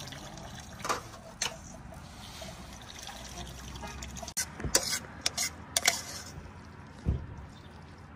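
A pot of meatball soup bubbling on a portable stove, a steady trickling sound. About halfway through, a few sharp metal clinks and a knock follow as a spatula works in a wok.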